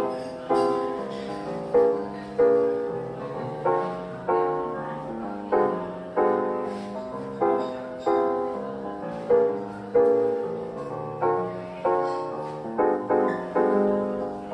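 Background piano music: a gentle tune of struck notes and chords, about one every half second or so, each one fading before the next.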